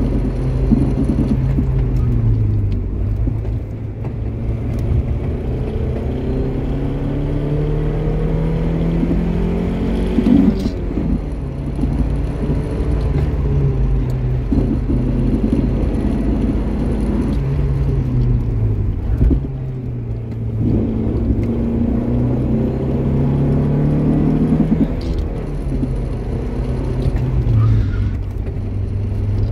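Stock 1984 Mazda 929's engine heard from inside the cabin under way, its revs repeatedly climbing and falling, with sharp drops about ten seconds in and again near twenty.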